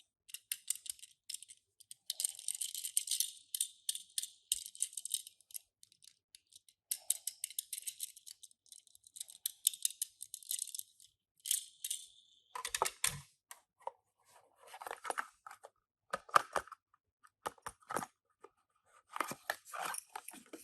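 Crackly rattling and crinkling of toy-car packaging being handled and opened. About twelve seconds in it gives way to a run of separate sharper clicks and knocks.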